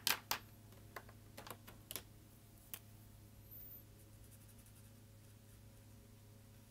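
Light plastic clicks of felt-tip markers and their caps being handled on a tabletop: a quick cluster in the first two seconds and one more near three seconds. After that only a faint steady low hum.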